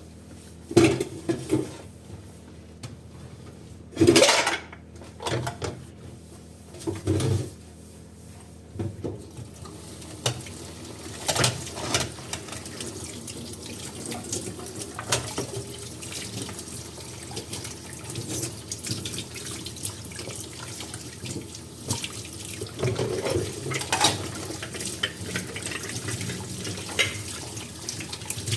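Dishes knocking and clinking in a sink, several sharp knocks at first, then a tap running steadily from about a third of the way in, with dishes clinking under the water.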